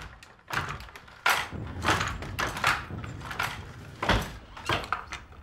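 Wooden handloom being worked: a string of irregular wooden clacks and knocks from the beater and shuttle, with one heavier thump about four seconds in.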